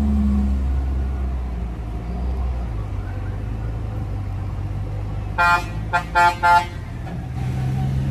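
Heavy diesel truck engines droning low and steady, with a vehicle horn giving a quick run of short toots a little past halfway.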